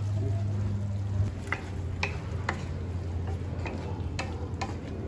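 Spatula stirring chicken in a pan, tapping and scraping against it about twice a second from about a second in, over a steady low hum.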